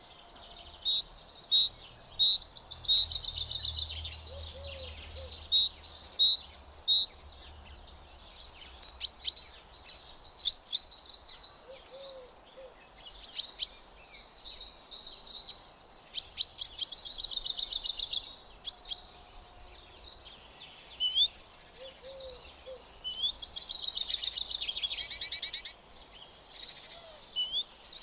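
Songbirds singing: runs of short, high chirps and trills, phrase after phrase with short pauses between them.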